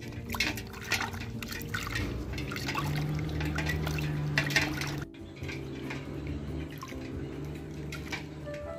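Water splashing and dripping in a metal basin as hands rub and lift duck eggs in it, with short irregular splashes and drips.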